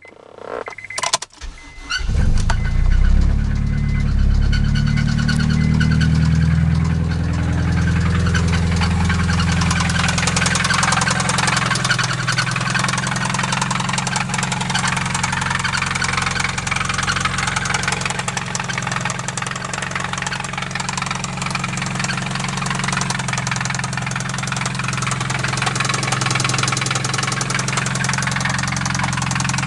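Acura RSX's 2.0-litre four-cylinder engine cranking and catching about two seconds in, running at a raised idle, then settling to idle with a steady rapid knock throughout: rod knock, a sign of a worn connecting-rod bearing after the engine was run without oil.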